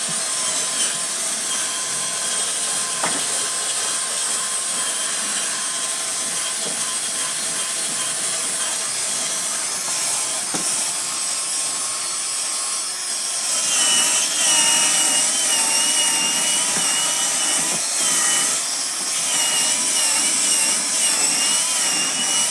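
A high-pitched electric motor running continuously with a strong hiss. About thirteen seconds in it gets louder and its whine starts to waver up and down in pitch.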